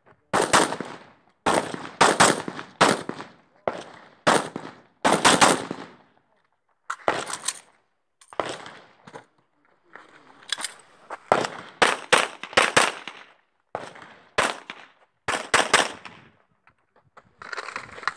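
Rifle shots fired in quick strings of one to three, many over the stretch, with short pauses between strings. Each shot cracks and leaves a short ringing tail.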